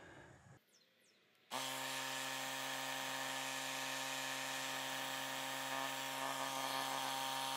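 Ryobi cordless tire inflator switching on about a second and a half in and running with a steady, even hum, pumping air into a battery pack to pressurise it for a leak test.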